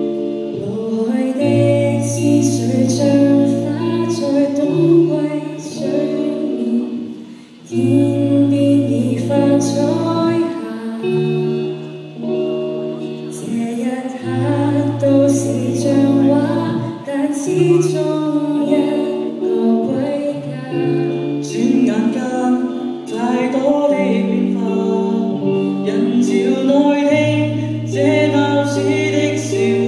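A choir singing in harmony, with low voices holding long notes beneath the upper parts, the sound dipping briefly between phrases.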